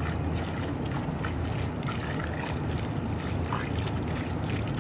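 Liquid waste decomposer poured in a thin stream from a plastic bottle into a concrete tank of dung slurry. The pouring sits over a steady low rumble.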